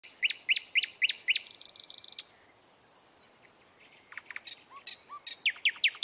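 Nightingale singing: it opens with a fast run of loud repeated down-slurred notes, then a short buzzy rattle and a single rising-and-falling whistle, and near the end another quick run of repeated notes.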